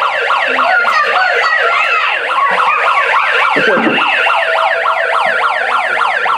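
Electronic siren in a fast yelp, its pitch sweeping up and down about five times a second, with more than one siren pattern overlapping.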